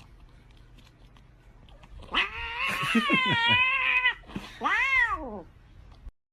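An animal's long, drawn-out call with a wavering pitch about two seconds in, followed by a shorter call that rises and then falls.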